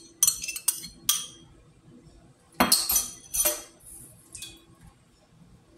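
A metal spoon clinking and scraping against a small ceramic bowl and a stainless steel stockpot as sauce is scraped into the pot: a quick run of clinks in the first second, then two louder knocks around the middle.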